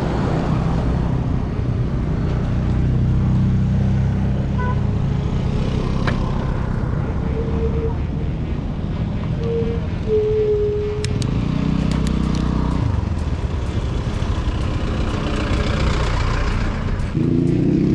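Road traffic: motor vehicle engines running and passing, with a few short tones in the middle, and one engine rising in pitch near the end as it speeds up.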